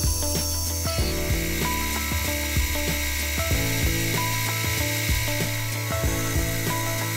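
Metal lathe turning a bar, the cutting tool taking a steady cut with a hiss that starts about a second in. Background music with plucked notes plays over it.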